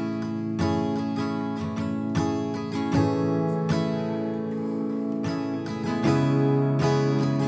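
Background music led by acoustic guitar, plucked and strummed at an even, gentle pace.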